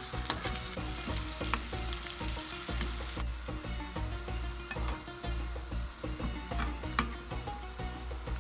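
Sliced onions frying and sizzling steadily in olive oil in a nonstick pan as they turn golden. A spoon stirring them scrapes and clicks against the pan again and again.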